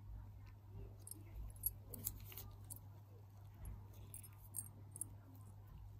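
Faint handling sounds: small clicks and light metallic ticks as a gold sovereign pendant on its loop is turned in gloved fingers, in two clusters, over a steady low hum.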